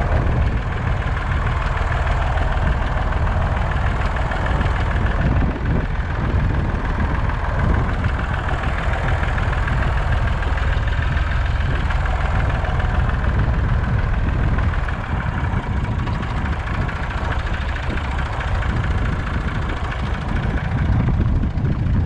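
Tractor engine running steadily at a low rumble while the tractor drives across rough hillside.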